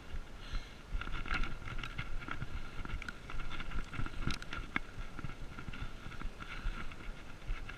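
BMX bike rolling over a rough dirt and gravel road, its parts rattling and knocking irregularly over the bumps above a low rumble, with a faint high tone that comes and goes.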